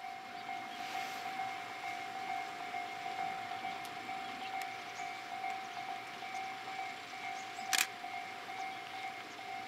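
Japanese level-crossing warning bell ringing in rapid, even, repeating strokes of one steady pitch: the crossing is sounding for an approaching train. A single sharp click about eight seconds in.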